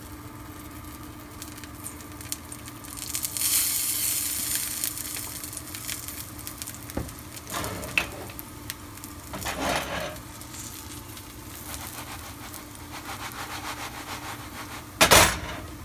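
Biscuit dough frying in oil in a cast-iron skillet, sizzling, with a louder hiss of sizzle about three to five seconds in. A few short noises come around the middle, and a loud brief knock sounds near the end.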